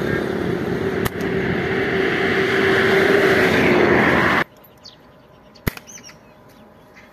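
A loud, steady rushing noise with a low hum under it, cut off abruptly about four seconds in. Then it goes much quieter, with faint bird chirps and one sharp click near six seconds.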